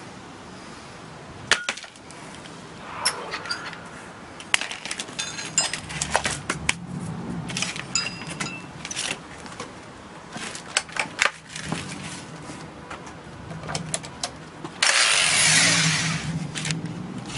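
Scattered metallic clinks and knocks of a steel drill bit being handled and fitted into a rotary hammer drill. About fifteen seconds in comes a short, loud burst as the rotary hammer runs briefly with its bit held clear of the work.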